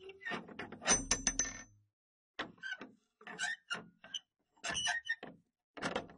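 Old iron door hardware on a gate (metal handle, latch and knocker) being worked, clacking and rattling in about six short bursts. The first burst, just over a second long, carries a brief metallic ring.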